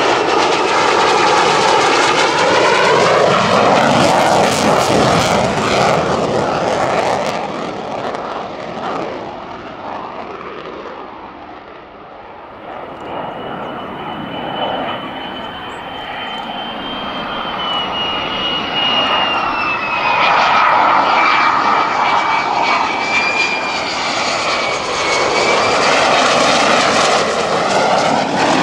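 Lockheed Martin F-35A's Pratt & Whitney F135 turbofan passing on landing approach: a loud jet roar with a high whine that slowly falls in pitch. It fades down through the middle and swells again near the end.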